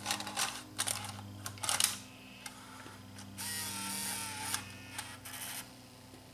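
Sony EV-C3 8mm VCR's front-loading mechanism taking a cassette: a run of plastic clicks and clunks as the cassette goes in, then a small motor whirs for about a second as the tape loads, followed by a few more clicks.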